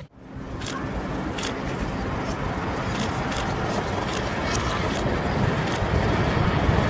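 Low rumble and hiss of a building demolition's collapse and dust cloud, played backwards so it slowly grows louder instead of dying away. Scattered faint clicks run through it.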